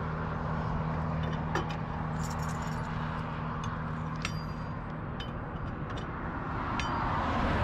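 A vehicle engine idling with a steady low hum over road noise, with a few scattered light metallic clinks.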